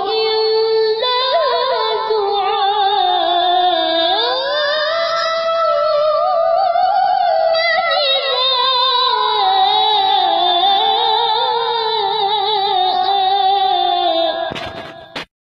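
A high singing voice holding long, wavering notes and gliding between them in a slow melody. It breaks off abruptly with a short crackle near the end.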